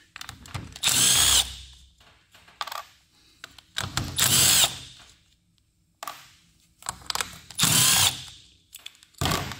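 Cordless power driver spinning off the nuts that hold a plastic cooling fan to its fan clutch: three short whirring bursts, each under a second, a few seconds apart, with small metal clicks in between.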